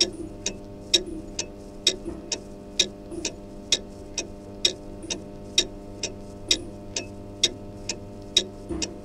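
Clock ticking steadily, about two ticks a second with every other tick louder, over a low steady hum.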